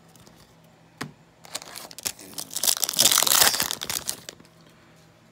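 Plastic foil wrapper of a trading-card pack crinkling as it is torn open and handled. A sharp click comes about a second in, then about three seconds of crinkling, loudest in the middle.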